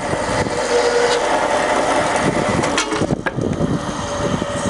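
Cosen AH-1010JAY automatic horizontal bandsaw running in auto mode, its blade cutting steel stock with coolant flowing: a steady mechanical hum with a held tone. A few short clicks and a brief change come about three seconds in.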